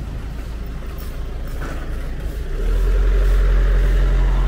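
A motor vehicle's engine running with a steady low hum, growing louder about two and a half seconds in.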